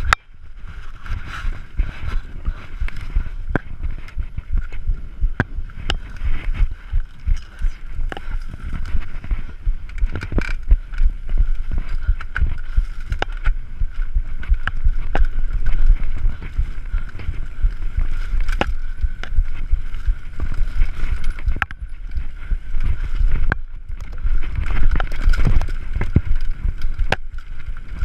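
Mountain bike descending a rough forest singletrack, heard through a rider-mounted camera: a constant low rumble of wind and vibration on the microphone, with frequent sharp clicks and knocks as the bike rattles over the bumpy trail.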